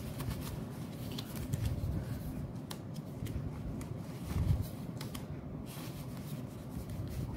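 Malaysian ringgit banknotes being leafed through and counted by hand: a steady crisp rustle with many quick snaps and flicks of the notes. A soft low bump comes about four and a half seconds in.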